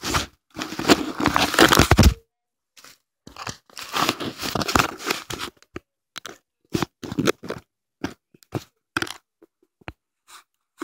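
Handling noise on a phone's microphone: rubbing and scraping crackles in two long irregular bursts, then scattered short clicks and taps as the phone is fumbled.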